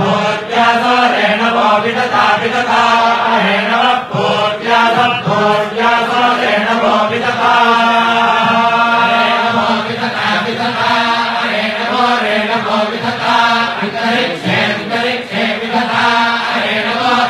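Vedic chanting: Sanskrit verses recited in a steady, continuous chant.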